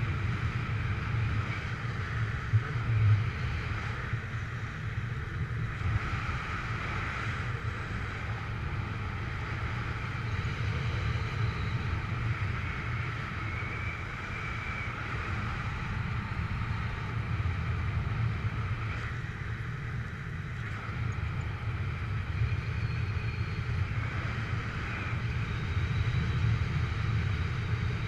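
Steady rush of airflow over the microphone during a paraglider flight, a low buffeting noise that rises and falls a little without stopping.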